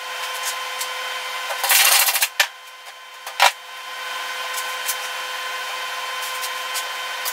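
Gloved hands handling a body hammer and panel clamps on a steel truck door skin: a short scraping rush about two seconds in and one sharp knock about a second later, over a steady hiss with a faint hum.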